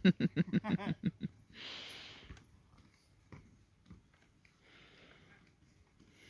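A person's laughter, a quick run of pulsing voiced bursts that stops a little over a second in, followed by a short breathy exhale; then only faint scattered small sounds.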